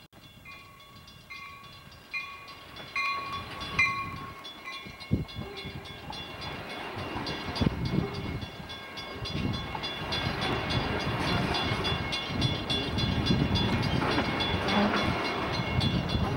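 A bell rings between two and three times a second for the first few seconds, then fades out. The Amtrak Pacific Surfliner passenger train, bilevel cab car leading, rolls past close by, and its wheel-on-rail rumble and knocking build louder as the cars go by.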